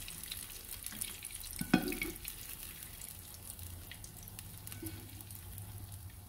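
Diced onions frying in shallow oil in a frying pan, a steady sizzle with fine crackles, while they are scooped out with a slotted spoon. A few knocks of the spoon against the pans, the sharpest a little under two seconds in.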